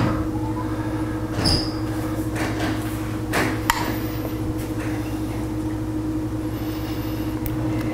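A steady low hum, with a few faint clicks of a spoon against a small glass bowl as thick glaze is spooned on.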